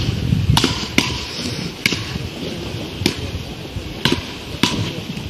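Paddle rackets hitting a small ball back and forth in a rally: about seven sharp cracks, half a second to a second apart.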